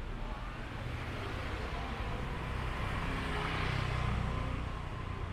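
A motor vehicle passing close by on a city street, its engine and tyre noise swelling to a peak about three to four seconds in and then fading, over a steady low rumble of traffic.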